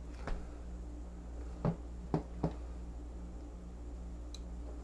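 Small tools and wire being handled on a workbench: four light clicks and knocks, a faint one near the start and three closer together about one and a half to two and a half seconds in, over a steady low electrical hum.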